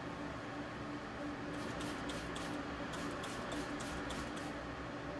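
Steady mechanical hum. From about a second and a half in comes a run of short, irregular rustling scratches, about eight in three seconds.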